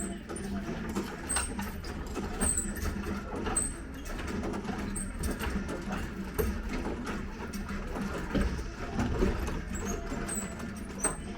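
Wall-framing work: many short knocks and clicks of tools and lumber over a steady low machine hum.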